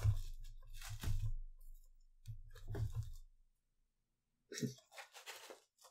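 A few short, soft mouth and throat noises, about a second apart.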